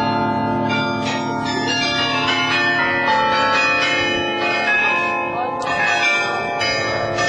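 Carillon bells ringing a run of overlapping notes of many different pitches, each note hanging on after its strike, with fresh strikes about a second in, near three seconds, and near the end.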